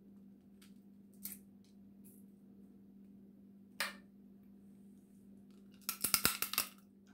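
Crab shells being cracked and picked apart by hand, with scattered single clicks and a quick run of crackling snaps about six seconds in, the loudest part, over a steady low hum.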